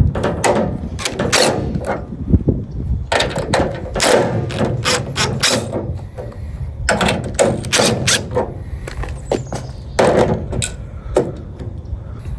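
Cordless 1/4-inch DeWalt impact driver with a 3/8 extension and impact socket, hammering in several short rattling bursts as it runs bolts down tight on the cart's caster wheels.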